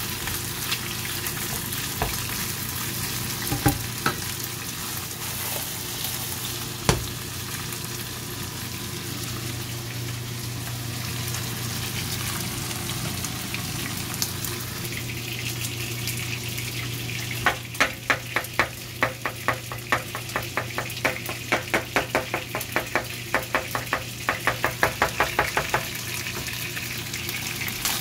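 Chicken pieces sizzling as they fry in oil in a nonstick pan, with a wooden spatula stirring them. A few single knocks early on, then from about two-thirds of the way through a quick run of taps, about three or four a second, as the spatula works against the pan.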